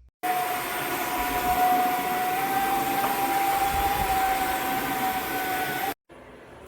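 Dreame H12 Pro cordless wet-dry vacuum-mop running steadily, its motor giving a steady high whine over a loud rush of air. The sound starts and cuts off abruptly.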